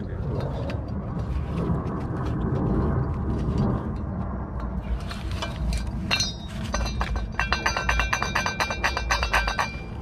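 Rapid metallic clicking and clinking with a ringing edge from a removed wheel hub and steering knuckle as it is handled and turned by hand, starting about halfway through, after a low rumble of handling noise. The hub's wheel bearing has just been called bad.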